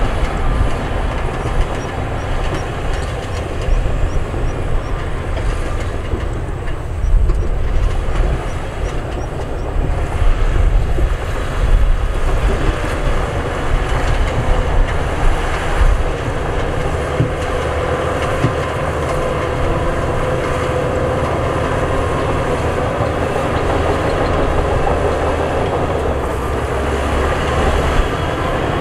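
Heavy diesel earthmoving machinery, bulldozers and dump trucks, running and working: a loud, continuous deep engine rumble. A steady engine tone comes up more strongly over the second half.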